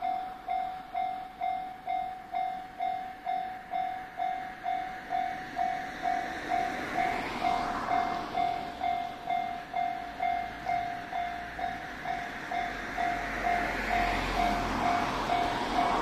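Japanese level-crossing warning bell, an electronic ringing tone repeating about twice a second. In the last few seconds a low rumble builds as the 1500 series diesel railcar approaches.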